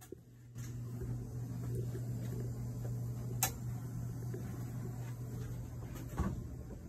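Steady low electric hum of running utility-room machinery, setting in about half a second in, with a single sharp click near the middle and rustle from the phone being carried.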